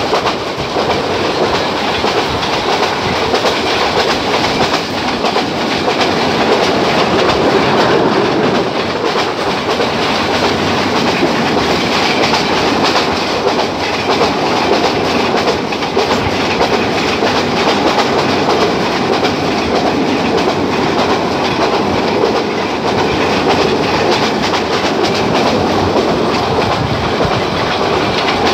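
Bangladesh Railway's Mohanagar Godhuli passenger train running along the track, a loud, steady noise of wheels on rails.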